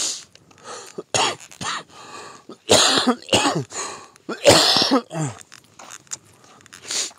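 A man coughing repeatedly in a series of short, harsh coughs, the strongest about three and five seconds in; he has a cold.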